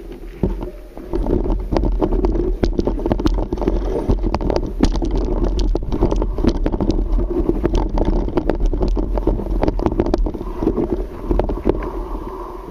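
Mountain bike rolling down rocky singletrack: tyres crunching over gravel and stones, with frequent sharp rattles and knocks from the bike, under wind noise on the camera microphone.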